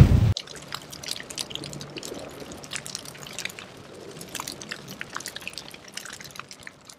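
The tail of a loud, deep booming hit cuts off about a third of a second in, leaving faint, irregular crackling clicks that stop just before the end.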